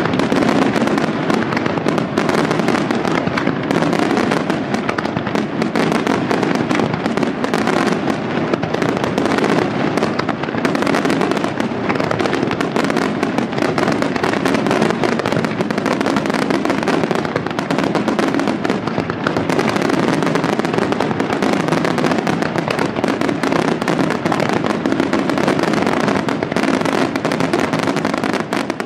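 Aerial fireworks going off in an unbroken barrage: shell bursts and crackle follow one another so closely that there are no pauses between them.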